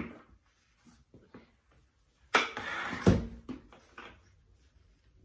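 A plastic bucket is tipped and polymer-modified thinset mortar slides out onto the concrete floor: a rush lasting under a second that ends in a heavy plop, after a few light knocks from the bucket and its handle.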